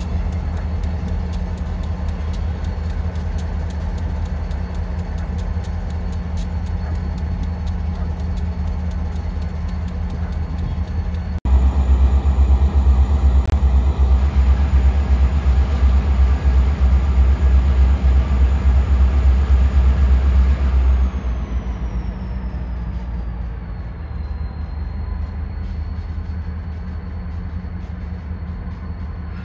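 Diesel locomotive engine running under load with a thin high whine over its low drone. About a third of the way in it gets much louder. About two-thirds of the way through it throttles back, the drone easing and the whine falling in pitch before levelling off.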